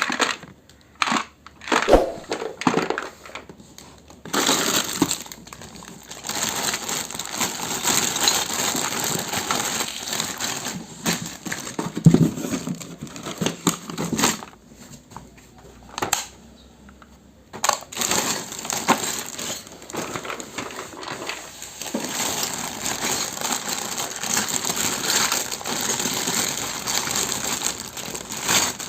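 Plastic packaging crinkling and rustling as a miniature toy kitchen set is unboxed by hand, with irregular clicks and knocks of small plastic pieces. The sharpest knocks come about two and twelve seconds in.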